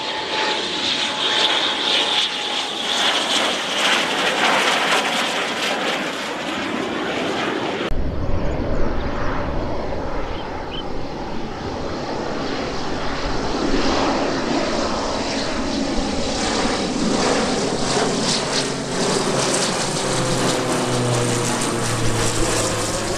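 AIDC F-CK-1 Ching-kuo (IDF) fighter on approach, its twin turbofan engines giving a steady high whine with a slowly falling tone. After a sudden cut about eight seconds in, a twin-turboprop transport on approach takes over: a propeller drone whose low tones rise and strengthen near the end as it passes overhead.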